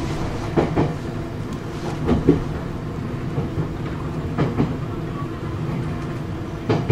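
Nankai 6000-series electric train running, heard from inside the leading motor car: a steady hum from the motors and gears, with the wheels clicking over rail joints in pairs about every two seconds.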